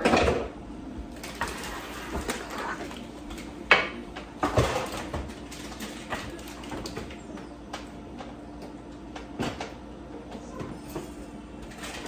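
Kitchen clatter: a handful of knocks and clunks from cupboard doors and cookware being handled, the loudest a sharp knock a little under four seconds in, over a steady low hum.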